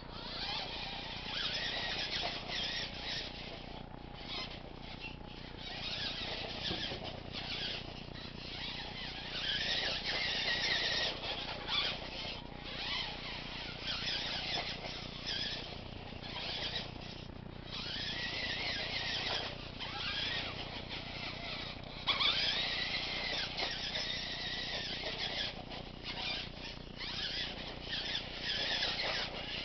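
Radio-controlled monster truck's motor and gears whining, the pitch rising and falling as the throttle is worked. It is loudest twice, when the truck is driven hard.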